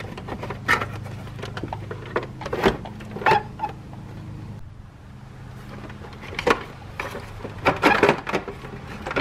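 Hard plastic clicks, knocks and scrapes as a Keurig K-Classic B40 coffee maker's outer casing is pulled downward, slid off the machine and set down. The knocks are irregular and scattered, over a steady low hum.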